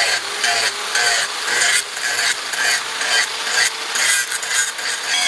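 Electric angle grinder with an abrasive disc grinding the steel blade of a forged cleaver, a steady motor whine under a harsh grinding hiss that swells and fades about twice a second.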